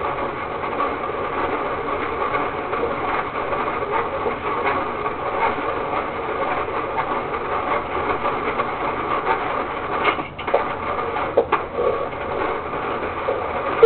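Toy DQ Blizzard ice cream maker being cranked by hand, with a steady churning of ice crushing inside it. The churning breaks off briefly twice near the end.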